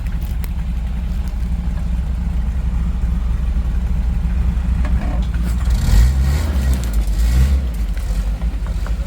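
Off-road 4x4 truck engine running at low speed on a trail, the engine note picking up and revving briefly about six seconds in, then settling back.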